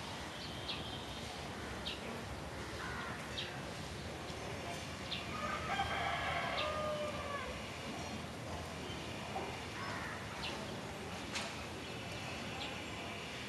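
A rooster crowing, one long call around the middle that is the loudest sound, over outdoor city ambience with short, high chirps of small birds scattered throughout.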